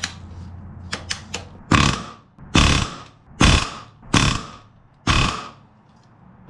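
Pneumatic rivet gun with a spring-loaded back-riveting set driving solid aluminium rivets into an aircraft wing main spar, in five loud bursts of rapid hammering of about half a second each. A few light clicks come first as the set is positioned.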